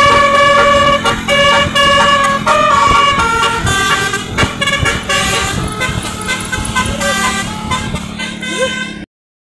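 Basuri musical bus horn (telolet) playing a tune: a run of held horn notes stepping up and down in pitch. The sound cuts off abruptly near the end.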